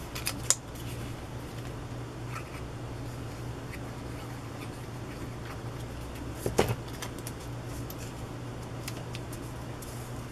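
Hands working with paper scraps and a small squeeze bottle of glue on a tabletop: light taps and paper handling, with a few small clicks near the start and one louder tap about two-thirds of the way in, over a steady low hum.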